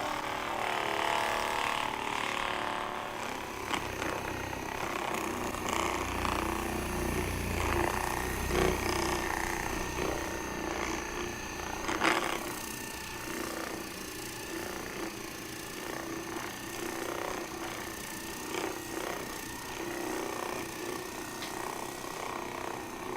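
Percussive massage gun buzzing steadily as it works the lower back muscles, with a sharp click about twelve seconds in.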